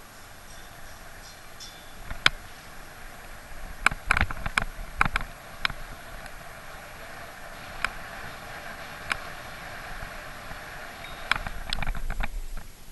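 Bicycle riding along a city street: steady wind and road noise, broken by sharp, irregular clatters and knocks as the bike jolts over rough pavement. The clatters bunch up about four to six seconds in and again near the end.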